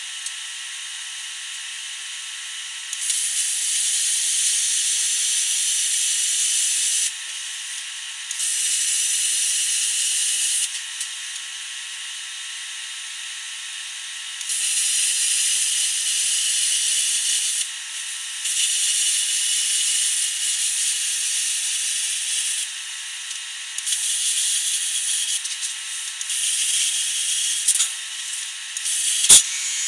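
Longevity ForceCut 80i plasma cutter cutting steel plate: a loud steady hiss while the arc runs, in several stretches of a few seconds each, dropping to a quieter air hiss between cuts, with a sharp click near the end.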